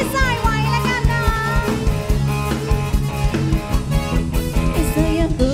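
Live band music from a drum kit keeping a steady beat, with bass and guitar, and a melody line that bends in pitch over the first second or two.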